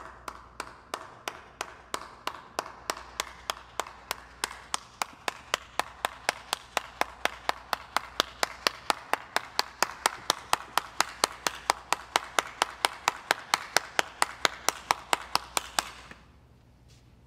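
One person's hands clapping in a steady slow clap, about three to four claps a second. The claps grow louder through the run and stop abruptly near the end.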